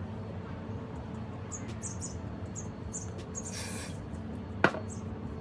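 A short hiss of Got2b Glued aerosol hairspray, lasting about half a second, comes a little past midway. A sharp click follows about a second later. Faint short high chirps repeat throughout.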